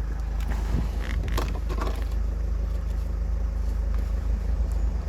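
Vauxhall Vivaro van's engine idling steadily, with a few clicks and rattles of the pulled-out hazard light switch and plastic dash trim being handled, about a second in.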